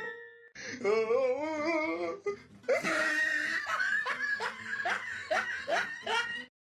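A person laughing: first a drawn-out, wavering sound, then a run of short laughs that each rise in pitch, stopping suddenly near the end.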